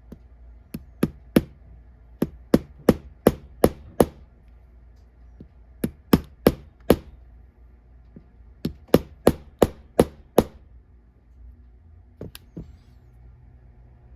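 Small hammer striking repeatedly to drive a stuck pin out of a Master Lock 575 padlock: sharp taps in bursts of three to six, about three a second, with pauses between bursts and a single last strike near the end.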